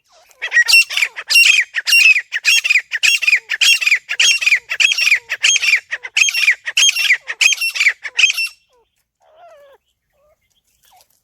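Teetar (grey francolin) calling: a run of about a dozen loud, harsh calls repeated evenly, a little faster than one a second, that stops about eight and a half seconds in, leaving only a few faint calls.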